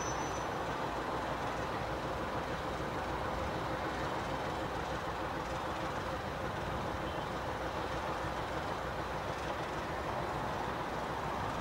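Several coupled diesel locomotives running light and rolling slowly past, their engines and wheels making a steady sound that holds at one level.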